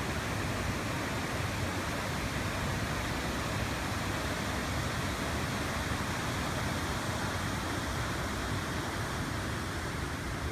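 Rushing water of a small forest river pouring through a log jam and over shallow riffles, a steady hiss.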